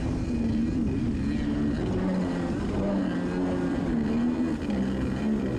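A stand-up jet ski's Kawasaki 650SX two-stroke twin engine running under way, its pitch rising and falling as it goes, with water spray hissing along the hull.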